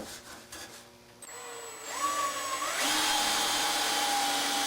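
Power drill turning a 1/2-inch Forstner bit, drilling into the bottom of a wooden leg: the motor starts about a second in, rises in pitch for a couple of seconds, then runs at a steady whine. A short knock comes right at the start.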